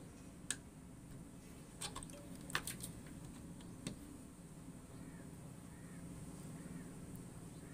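A soldering iron working the solder joints of a solar panel junction box's diode strips: a few sharp clicks and ticks of the tip against the metal terminals, the loudest about two and a half seconds in, over a steady low hum.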